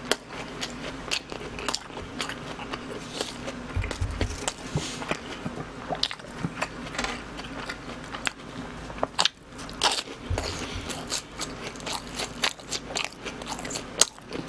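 Chewing and biting into BHC cheese balls, fried glutinous-rice dough balls filled with cheese, with many small irregular mouth clicks.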